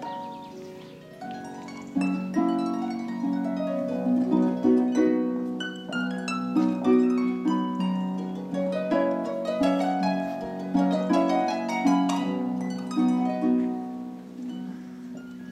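Pedal harp played solo: plucked notes ringing on. It starts softly with a few scattered notes, then about two seconds in turns fuller, with steady low bass notes under a busier melody.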